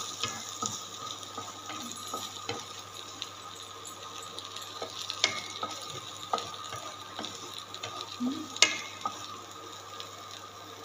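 Wooden spatula stirring and scraping beaten egg into onion-tomato masala in a non-stick kadai, over a low sizzle, with scattered light knocks of the spatula on the pan and one sharper knock late on.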